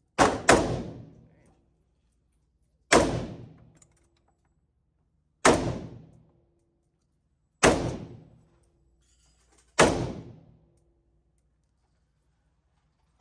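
Six single gunshots fired at a slow, deliberate pace, each ringing out for about a second. The first two come a fraction of a second apart, then four more follow about two seconds apart.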